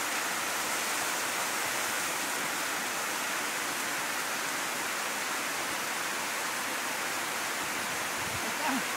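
Water pouring down a concrete dam spillway, a steady, even rushing.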